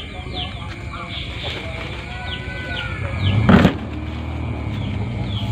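Small birds chirping repeatedly, short falling notes. A vehicle engine hums low and grows louder through the second half, with a brief loud sound about three and a half seconds in.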